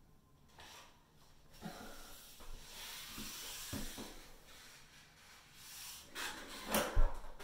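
Paper drywall joint tape rustling as it is pressed by hand into wet joint compound along a plasterboard seam, with a few small knocks and a sharper knock near the end.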